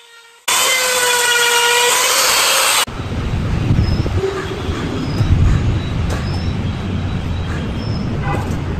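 A 6 mm electric die grinder whining at high speed, its burr grinding into coconut shell, for about two and a half seconds before stopping abruptly. After that comes a steady low rumble with faint short high chirps and a few light clicks.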